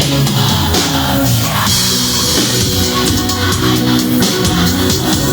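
Live band playing a loud instrumental passage between sung lines, with a drum kit keeping the beat under sustained chords.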